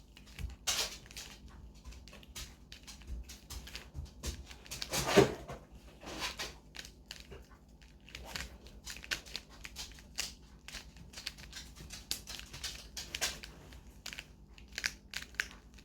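Plastic layers of a shape-shifting twisty puzzle cube being turned by hand: irregular quick clicks and rattles, with a louder clack about five seconds in.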